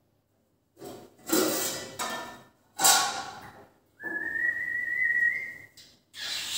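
Indian ring-necked parakeet calling: a few short, harsh, raspy calls, then about four seconds in one long whistled note held for nearly two seconds, rising slightly in pitch, before another harsh call near the end.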